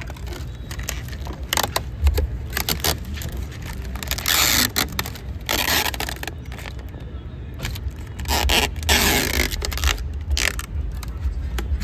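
Dark tint film being peeled off a car's side window glass: several short crackling rips, then three longer tearing pulls of up to about a second each.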